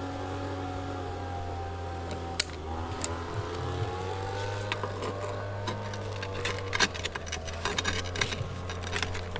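A steady motor hum of several tones that drift slightly in pitch. From about two seconds in, irregular sharp clicks and taps come over it, growing more frequent in the second half.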